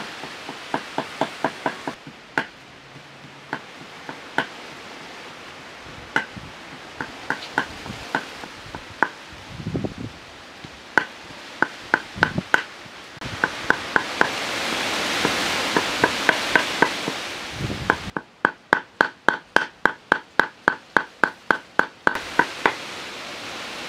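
Knife chopping on a wooden cutting board: sharp knocks, some single and some in quick runs, about four a second near the end, over a soft steady hiss.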